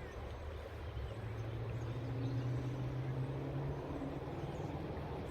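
A low, steady motor hum that swells about two seconds in and then eases off, over faint outdoor background noise.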